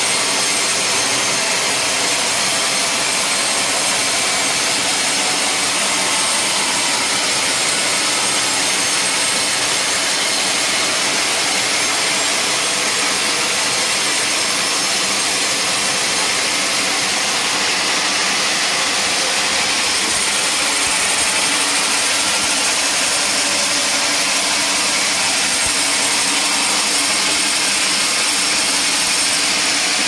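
Band sawmill blade ripping lengthwise through an old teak beam: a steady, even, high-pitched hiss of cutting, unbroken throughout.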